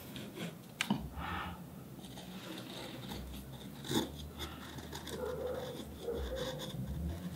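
Small chisel blade paring and scraping a beech wood block by hand: soft scratchy cuts with a few light ticks, the sharpest about a second in and about four seconds in.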